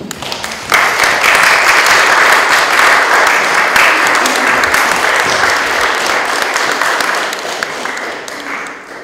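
Audience applauding: a few claps, then a full burst of clapping just under a second in that holds steady and tails off near the end.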